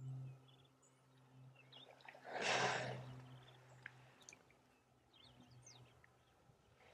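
One loud, breathy snort from a large animal in the waterhole about two and a half seconds in, lasting about a second, over a steady low hum and a few faint bird chirps.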